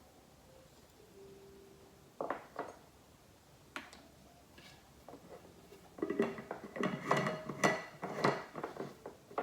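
A metal utensil clinking against dishware: a few separate taps, then about six seconds in a quick run of ringing clinks like stirring or whisking in a cup or bowl.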